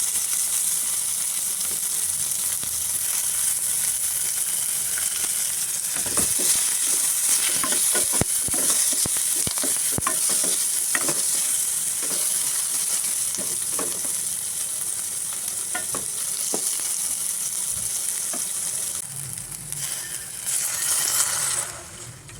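Food sizzling as it fries in a pan, with a utensil clicking and scraping against the pan through the middle of the stretch as the food is stirred.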